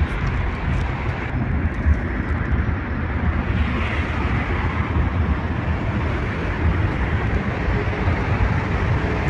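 Steady road traffic noise, a continuous low rumble.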